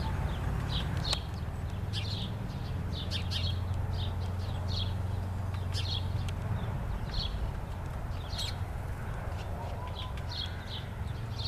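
A woodpecker pecking out a nest hole in a tree, irregular sharp taps, while small birds chirp on and off throughout. A steady low hum sits underneath.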